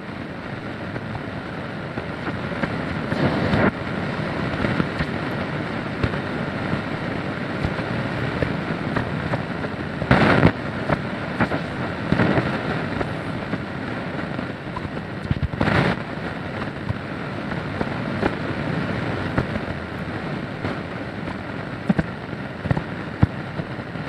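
Shortwave radio static hissing and crackling while the dial is tuned across the band, with louder surges of noise about 3, 10 and 16 seconds in.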